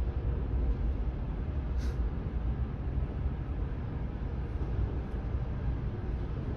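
Steady low rumble of a TTC Bombardier T1 subway train in the station, with one short click about two seconds in.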